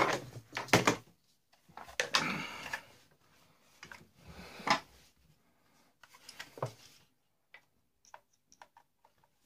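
Knocks and rattles of a clothes iron's plastic casing being handled and turned over on a wooden bench, with the sharpest knocks near the start and about halfway through. Near the end, small faint clicks as a screwdriver works the screws of the iron's wiring terminal block.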